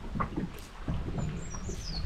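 Water slapping against a small boat's hull over a low rumble, with a bird calling in a quick run of high chirps in the last second.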